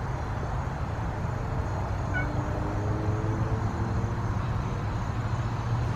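Steady low background rumble of outdoor ambience, with a faint hum between about two and four seconds in and a faint short chirp about two seconds in.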